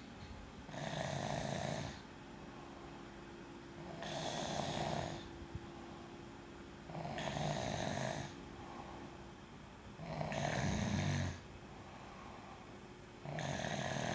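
A sleeper snoring in a slow, even rhythm: five rasping snores, each a little over a second long, about three seconds apart, with quiet breathing between them.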